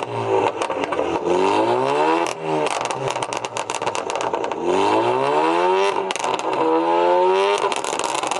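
Tuned Alfa Romeo Giulia's four-cylinder engine free-revved three times while parked. Each rev rises and then drops off into a burst of exhaust pops and crackles from the tune.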